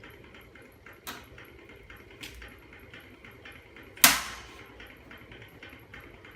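Two light knocks, then one loud sharp clank about four seconds in with a short ringing tail: tools and the casing of an inverter stick welder being handled as its cover screws are taken out.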